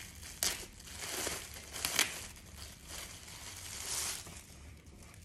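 Clear plastic packaging crinkling as it is pulled open around a black barber apron, with sharper crackles about half a second in and again at about two seconds.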